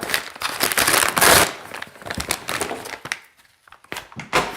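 A shipping package being torn open by hand, with the packaging crinkling and rustling. The tearing is loudest near the start, followed by smaller crackles and a brief rip near the end.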